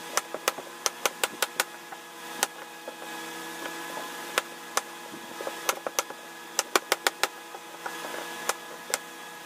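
Cleaver chopping vegetables on a plastic cutting board: sharp knocks in quick runs of several, with pauses between, over a steady hum.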